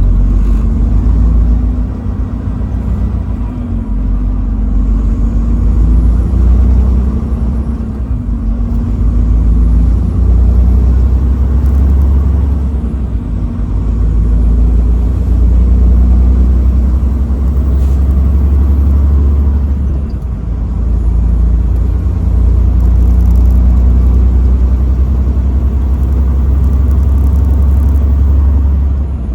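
Truck driving on the highway: a steady, loud low rumble of engine and road noise that swells and eases every few seconds.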